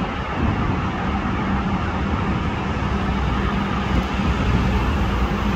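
Steady engine rumble and traffic noise with a low hum running through it, from road vehicles and a diesel-hauled passenger train.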